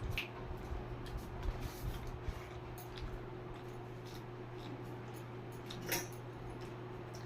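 Eating sounds: soft wet squishes and small clicks of rice and curry being mixed and chewed, with a louder squish near the end, over a steady low hum.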